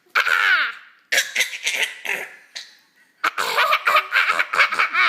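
An eight-month-old baby laughing in three bouts of quick, high-pitched laugh pulses with short pauses between them; the first bout opens with a squeal that slides down in pitch.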